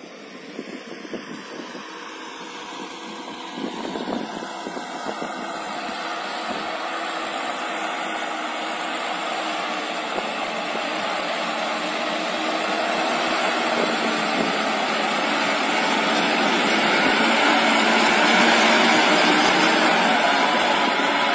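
YTO LY1104 tractor's diesel engine running under load as it pulls a rotary tiller through the soil, growing steadily louder as the tractor draws near.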